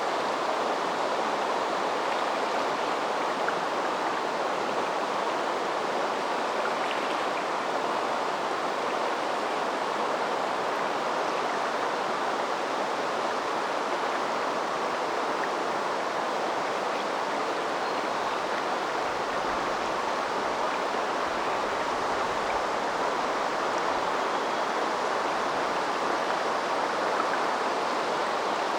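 A river stream flowing: a steady, even rush of moving water.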